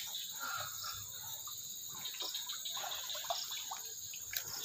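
Crickets chirring steadily in the background, with faint, scattered small sounds mixed in.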